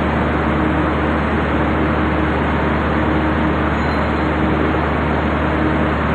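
Machinery running steadily: a continuous mechanical din over a low hum, with no change in pace or level.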